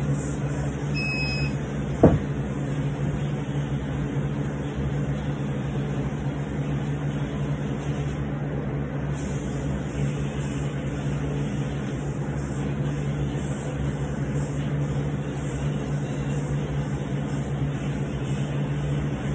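A steady low hum, with one sharp thud about two seconds in as a 50 lb dumbbell is dropped to the floor. A short faint high beep sounds just before the thud.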